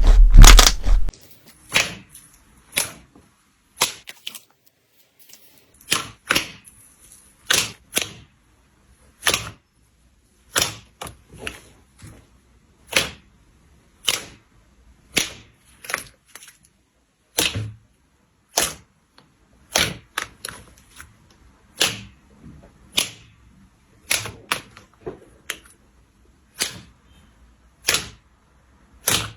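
Slime being pressed and squeezed, giving sharp, crisp clicks and pops, one or two at a time and irregular, roughly once a second. A loud burst of crackling fills the first second.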